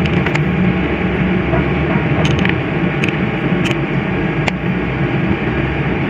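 Air-cooled motorcycle engine running steadily on a freshly fitted 28 mm Koso carburettor while the carburettor's adjusting screw is turned with a screwdriver to tune the mixture; the owner hears a slight hiccup in its running. A few light clicks come through over the hum.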